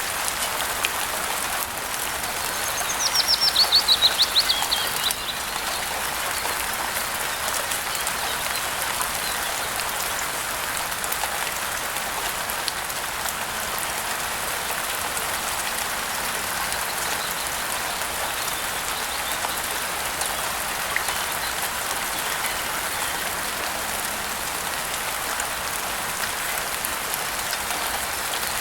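Steady rain with scattered drips. About three seconds in, a bird sings a quick trill of rapid falling notes lasting a couple of seconds.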